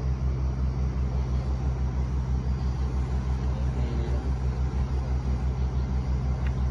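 A heavy engine idling with a steady low throb that pulses several times a second.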